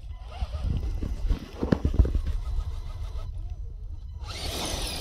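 Axial SCX10 II Unimog RC rock crawler driving up a sandstone ledge: its electric motor and gears whir, stop for about a second past the middle, and start again near the end. A few knocks of the truck on rock come about two seconds in, over steady wind rumble on the microphone.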